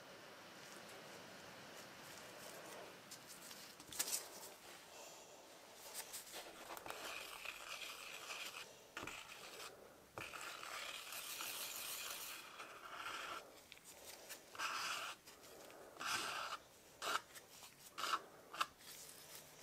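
Wooden stir stick scraping and swirling thick two-component silicone resin around the sides and bottom of a clear mixing cup, steady at first and breaking into separate short scrapes near the end, with a sharp tap about four seconds in.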